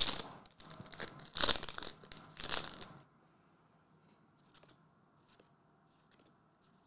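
A Weiss Schwarz booster pack's foil wrapper torn open and crinkled in several short noisy bursts over the first three seconds, then only a few faint clicks.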